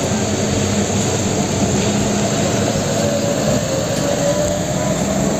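Fuel tanker truck driving on a wet road: a steady diesel engine drone under an even hiss of noise.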